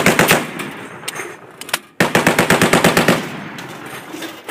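M2 .50-caliber heavy machine gun firing in bursts: a burst ends just after the start, a couple of single shots follow, then a second burst of about ten rounds at roughly ten shots a second begins about two seconds in, with the reports echoing after each burst.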